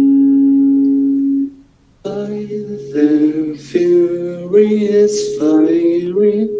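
A young man singing a slow song to his own electric guitar. A long held note cuts off about a second and a half in, and after a short pause the sung lines start again over the guitar.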